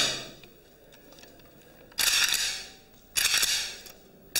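A rifle being handled and its action worked: four sharp metallic clacks, each ringing briefly in a small room.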